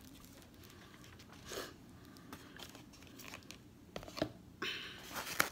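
Paper and plastic packaging being handled, rustling and crinkling, with a few light knocks about four seconds in and denser crinkling near the end.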